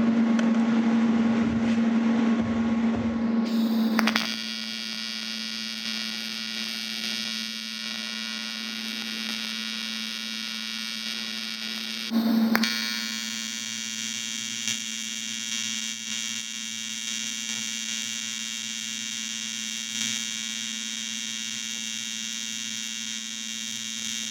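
AC TIG welding arc on aluminum, buzzing steadily as beads are laid. The buzz changes and quietens about four seconds in, and is briefly louder around twelve seconds in.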